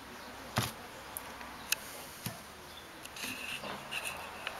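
A few light, separate clicks and taps of steel gearbox parts, the T50 mainshaft gears and a sleeve being handled and fitted together, with some rustling handling noise near the end.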